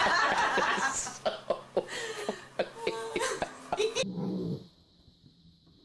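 A dog scent-rolling on its back on carpet makes busy scuffing and rubbing noises. The sound stops abruptly about four seconds in and near quiet follows.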